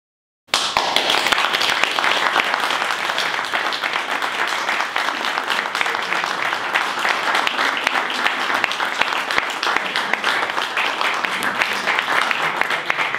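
Audience applauding: dense, steady clapping that starts suddenly about half a second in.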